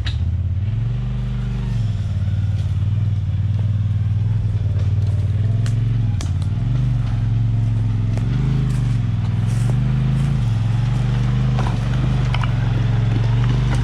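Four-seat side-by-side UTV engine running loud under load on a rocky trail, its pitch rising and falling several times as the throttle is worked. A few sharp clicks and knocks sound over it.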